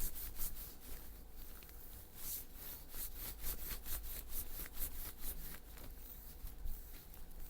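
Faint, irregular rubbing and light ticking of hands and cupping glass working over skin during a calf massage.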